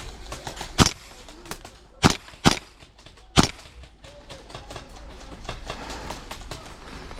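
Airsoft gas blowback rifle firing four sharp single shots in the first three and a half seconds, two of them close together, with fainter clicks and pops around them.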